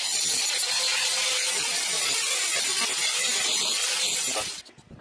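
Angle grinder grinding down the jagged cut ends of a steel wire basket: a steady grinding noise that stops about four and a half seconds in.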